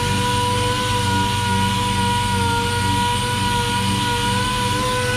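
Orbital sander running steadily against a car's quarter panel, sanding down a thin coat of fiberglass filler: a constant whine over a rasping hiss.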